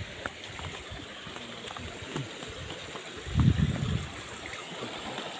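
Steady trickle of running water from a small stream, with a brief low rumble about three and a half seconds in.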